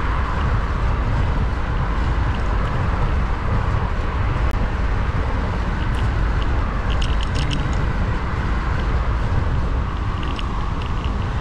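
Steady wind rumble on the microphone and tyre noise from a bicycle rolling along a city street, with a few light clicks about seven seconds in.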